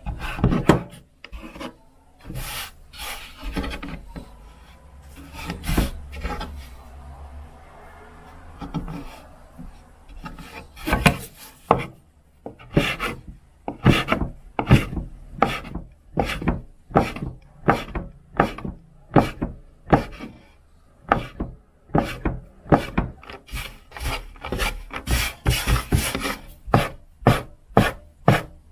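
Kitchen knife working on a wooden cutting board: irregular rubbing and scraping strokes for the first dozen seconds or so, then steady, evenly spaced cuts at about two a second.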